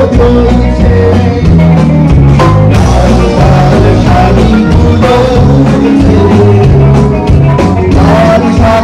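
Man singing into a microphone over loud amplified band music with a steady drum beat.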